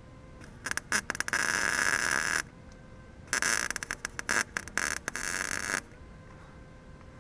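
Wire-feed welder arc crackling and sputtering as a steel bracket is welded, in two bursts: one of about two seconds starting with a few sputters, then a longer one with brief stutters.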